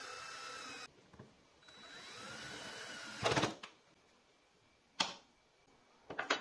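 Cordless drill/driver whining as it drives wood screws through a hardwood block into plywood: two short runs, each rising in pitch and then cutting off. A loud clunk follows, then a knock and a few sharp clicks as tools and pieces are set on the wood.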